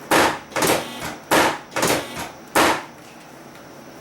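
Chiropractic drop table (Thompson table) sections dropping under the chiropractor's thrusts: about five loud clacks in quick succession over two and a half seconds.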